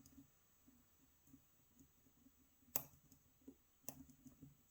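Faint clicks and ticks of a hook pick working the pins inside a Multi XL pin-tumbler lock cylinder held under tension, with two sharper clicks about three and four seconds in.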